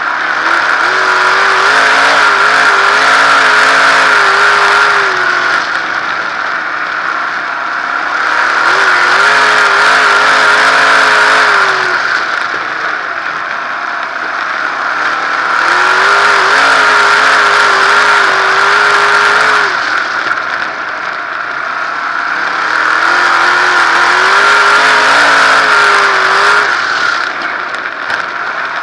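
360 sprint car's V8 engine heard from inside the open cockpit while lapping a dirt oval: full throttle on the straights and easing off for the turns, so the engine swells and drops about every seven seconds, four times.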